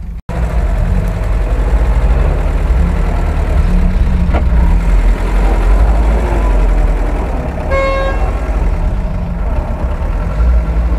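UAZ-469 engine running as the vehicle drives over rough ground. A short horn toot sounds about eight seconds in.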